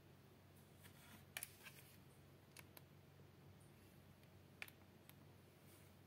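Near silence: faint room tone with a low hum and a handful of faint, sharp clicks, the loudest about a second and a half in and another near the end.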